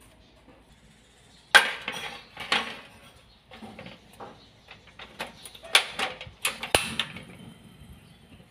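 Kitchen clatter of metal cookware: sharp clanks and knocks as an empty riveted steel wok is handled. The loudest clank comes about one and a half seconds in, with a run of several more near the end.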